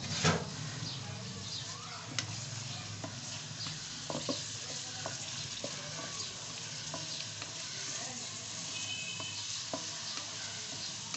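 Diced boneless chicken breast and onion frying in oil in a metal karahi, a steady sizzle, while a wooden spatula stirs it, knocking and scraping against the pan now and then. The loudest knock comes just after the start.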